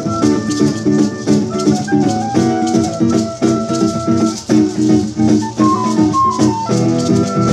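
Live instrumental music: a plastic recorder plays the melody over an acoustic guitar, with a maraca shaken in a steady rhythm.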